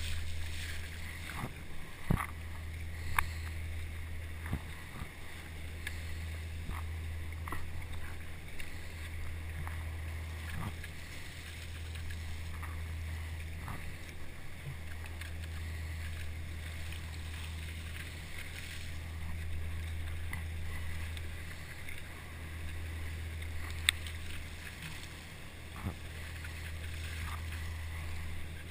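Surfski hull running in the foaming wake of a dredger, with continuous rushing, churning water under a steady low rumble, and scattered short splashes and knocks from paddle strokes.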